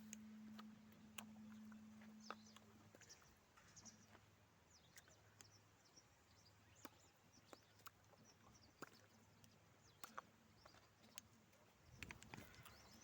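Near silence: faint outdoor ambience with scattered small clicks and faint, short, high bird chirps, over a faint hum that dies away about three seconds in.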